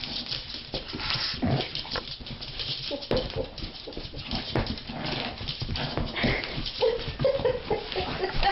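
A dog giving short whines, mostly near the end, over many short scratchy, rustling noises.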